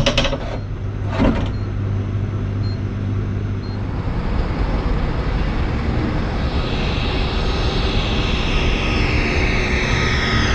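Hydrogen fuel-cell converted ADL Enviro400 double-decker bus: a steady low hum from on board, with two sharp clicks near the start. From about halfway on, a high electric drive whine falls steadily in pitch as the bus slows to pull in.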